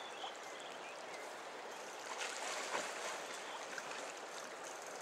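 Steady rush of a fast-flowing river along the bank, swelling a little for a second or so around the middle.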